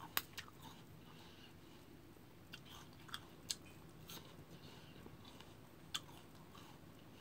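A person biting and chewing crisp raw fruit slices at close range, with several sharp crunches (the loudest just after the start, more in the middle and about six seconds in) over softer wet chewing.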